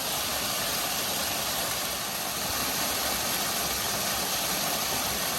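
Waterfall on a mountain stream, water rushing with a steady, even noise.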